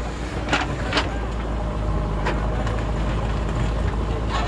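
JCB backhoe loader's diesel engine running steadily, with a few short sharp sounds over it.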